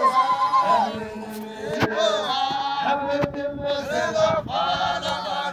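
A group of men chanting and singing together in a traditional Xhosa ceremonial song, holding long, wavering notes. Two sharp knocks cut through, one about two seconds in and one about three seconds in.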